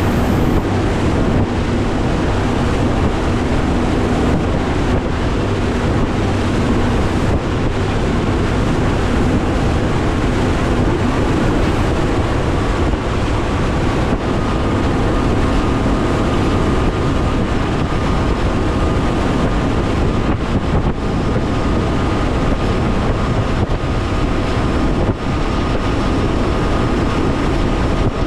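Mercury Pro XS 200 outboard motor running under way on a Nitro Z19 bass boat through rough water, with the hull slapping the waves and wind rushing over the microphone. The engine's steady tone shifts higher about halfway through.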